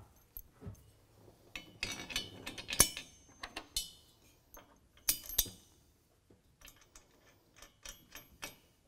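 Metal clinks and knocks of bolts, washers and lock nuts being handled and fitted at a steel crossbar bracket of a truck-bed sport rack. A run of clinks in the first three seconds is loudest near three seconds in, another pair of sharp knocks comes about five seconds in, and lighter ticks follow.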